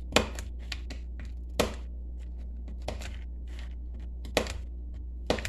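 Knife chopping pecans on a plastic cutting board: irregular sharp clicks and taps, a few louder strikes roughly a second to a second and a half apart, over a steady low hum.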